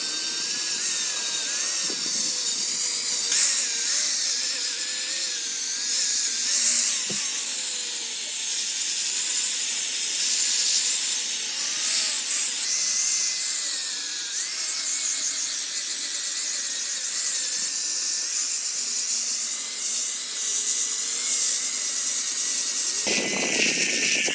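Power tool working wood: a continuous high-pitched rushing noise with a faint whine that wavers in pitch as the load changes. Near the end the sound turns fuller and lower.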